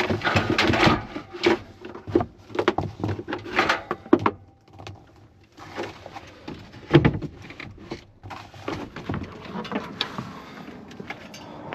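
Gear being rummaged through and handled: a dense string of knocks, clunks and rustling, with a single loud thump about seven seconds in and quieter scattered clicks toward the end.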